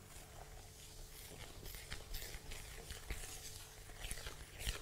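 A metal spoon stirring dry flour in a plastic mixing bowl: faint, irregular soft scraping and rustling with occasional light ticks of the spoon, one a little louder near the end.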